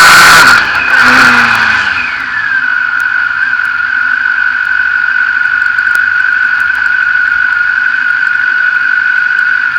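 Rage buggy's Kawasaki ZZR1400 four-cylinder engine at high revs, cut off sharply about half a second in. The revs fall away over the next two seconds, then it runs steadily at low revs with a constant high whine.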